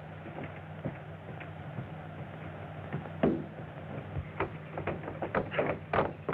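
Steady hiss and low hum of an early-1930s optical film soundtrack. About three seconds in, irregular short knocks join it.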